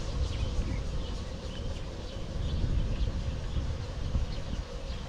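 Wind and road rumble on the microphone of a bicycle riding a paved path, with a faint steady hum and scattered faint high chirps.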